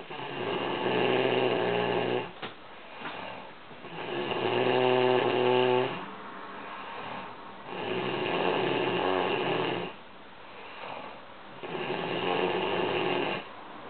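A woman snoring in her sleep: four long snores of about two seconds each, roughly one every four seconds, with quieter breathing between them.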